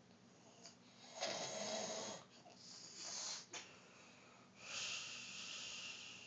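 Snoring in sleep: three slow, noisy breaths, the last carrying a high whistle.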